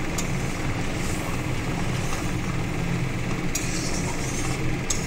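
Steady low mechanical hum, like a motor or fan running, with a few brief light clicks about three and a half seconds in and near the end.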